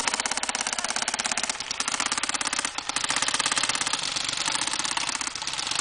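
Airsoft electric guns firing on full auto: a very rapid rattle of shots in long bursts with short breaks, over the whine of the gearbox motors.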